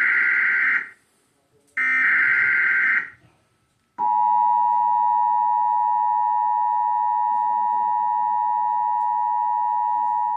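Emergency Alert System broadcast tones. First come two harsh digital data bursts, each about a second long: the SAME header that encodes the flash flood warning alert. Then, about four seconds in, the steady, loud two-tone attention signal starts and holds.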